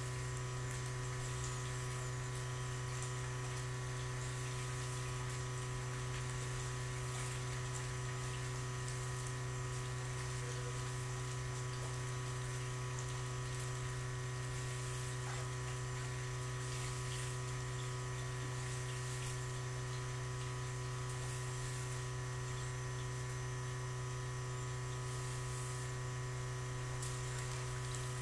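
Steady electric motor hum with several constant overtones, over a continuous hiss of moving water, without change throughout.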